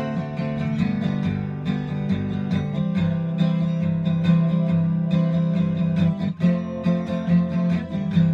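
Acoustic guitar strummed in a steady rhythm, with a brief break in the strumming about six seconds in.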